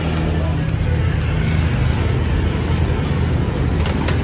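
Light box truck's engine idling, a steady low hum, with street traffic around it. A few light knocks near the end.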